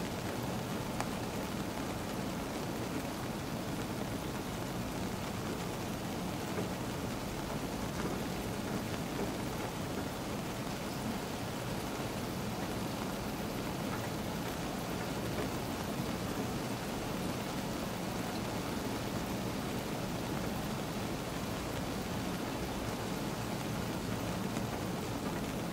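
Steady rain falling on a car, heard from inside the cabin: an even, unbroken patter with a few faint drop ticks.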